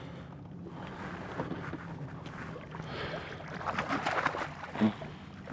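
Choppy lake water lapping and slapping against a fiberglass bass boat's hull over a steady low hum. The slapping grows more frequent and louder in the second half, with one heavier slap near the end.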